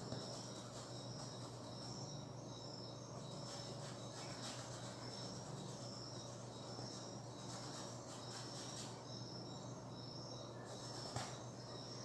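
Faint high chirping of crickets, short repeated notes, over a low steady hum.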